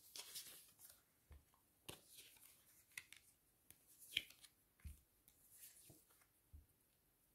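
Faint rustles and soft, irregular clicks of cards being handled, a few scattered taps a second or so apart.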